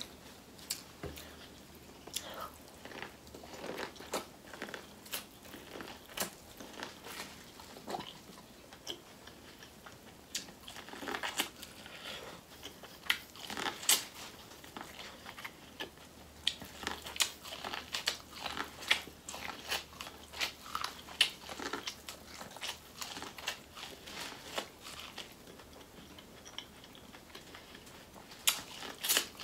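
A person biting kernels off a cob of boiled corn and chewing, making many short, irregular mouth clicks.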